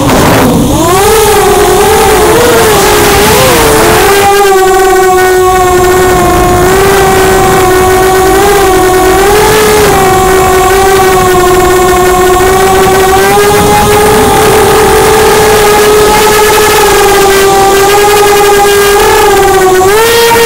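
ImmersionRC Vortex 285 FPV racing quad's brushless motors and propellers whining, heard from its onboard camera. The pitch drops sharply at the start as the throttle is cut for a roll, wavers for a few seconds, then holds a nearly steady whine and rises again near the end, over a constant hiss.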